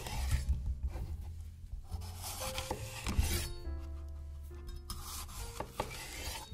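Vegetables being shredded in a run of rasping strokes, over soft background music.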